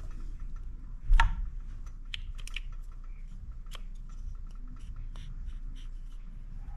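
Light clicks and taps of small parts and tools being handled, with one louder knock about a second in.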